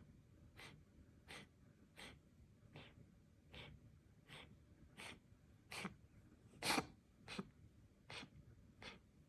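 Domestic cat coughing: a steady run of short, dry, breathy hacks about every three-quarters of a second, one louder hack about two-thirds of the way through.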